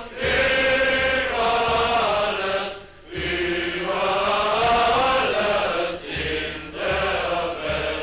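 A large crowd singing together in long held phrases, with short breaks between phrases about three and six seconds in.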